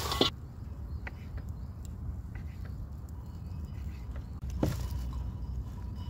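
Knife cutting tomatoes on a wooden cutting board: a sharp knock right at the start, then a few light taps, and a short rustle about five seconds in, over a low steady outdoor rumble.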